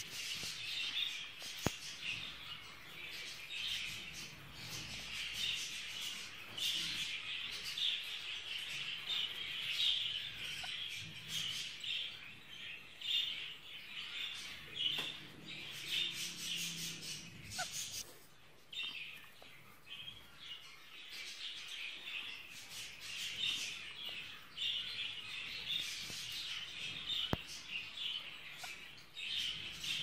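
Budgerigars chirping and chattering without a break, quieter for a few seconds just past the middle. A couple of sharp clicks stand out.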